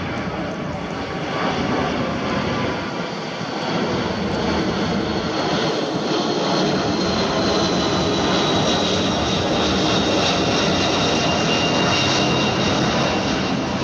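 Four-engined widebody jet airliner passing low overhead on approach, a steady jet roar that grows louder, with a thin engine whine that slides slowly down in pitch as it goes over.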